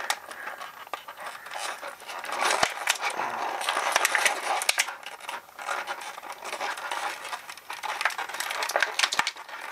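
Clear plastic blister tray crinkling and creaking in the hands as a small toy accessory is worked loose from it, with many sharp little clicks and scratches of plastic on plastic.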